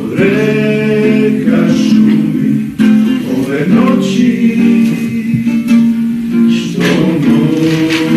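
Song with acoustic guitar accompaniment, voices holding long sung notes in phrases of about three seconds.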